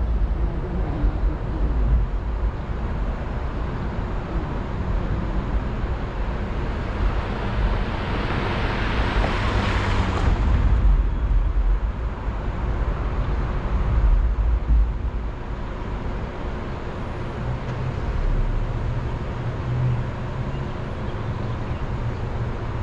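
Street traffic heard from a car stopped at a red light: a steady low rumble, with one vehicle's noise swelling and then dropping away quickly about ten seconds in.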